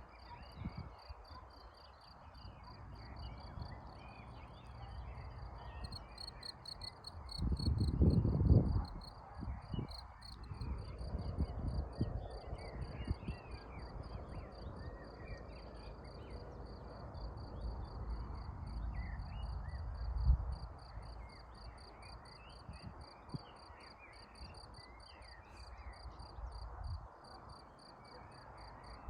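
Crickets trilling steadily in rapid even pulses, with frogs calling among them. Low rumbling surges come and go underneath, loudest around eight seconds in.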